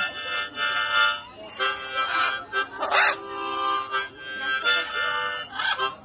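Harmonica playing a tune of held notes and chords, with a short harsh burst about halfway through.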